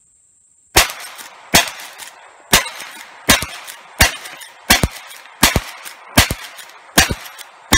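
Lever-action rifle fired in rapid succession: about ten sharp shots, roughly three-quarters of a second apart, each with a short ringing tail.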